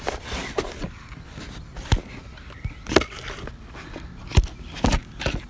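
Plastic parts bags and a cardboard box being handled and set down: brief rustling near the start, then a few scattered sharp knocks and clicks.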